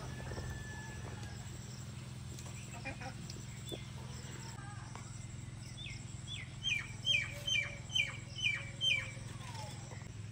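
A bird calling a quick run of about eight falling notes, roughly two a second, in the second half, over a steady low hum.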